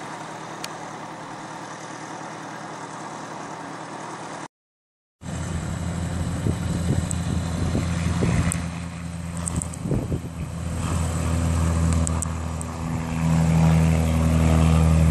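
Propeller aircraft engine running with a steady drone, swelling louder near the end as the aircraft passes overhead, with a few knocks on the microphone. Before it there are a few seconds of quieter steady background noise and a brief dropout.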